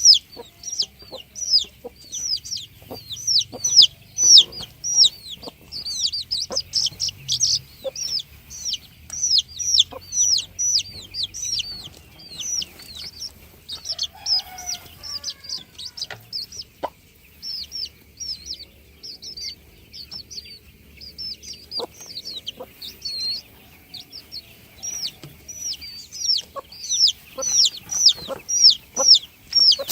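Many chicks peeping continuously, a dense run of short high notes that each fall in pitch, several a second. A lower, brief call breaks in about halfway through, and there are scattered short taps.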